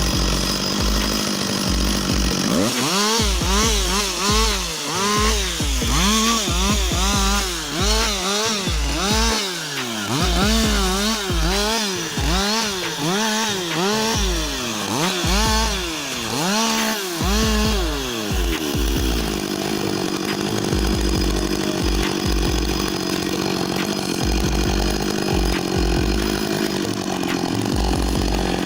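Chainsaw engine revved up and down over and over, about once a second, then running at a steady speed for the last part.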